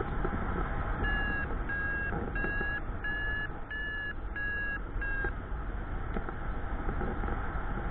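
Paragliding variometer beeping, seven short beeps at about one and a half a second, the pitch lifting slightly in the middle of the run, over steady wind rush on the microphone. Pulsed beeping like this is the vario's climb tone, signalling rising air.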